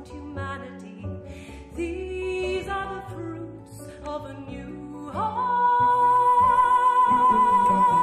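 A woman singing over double bass and kora. About five seconds in, her voice slides up into one long, loud high note held with vibrato.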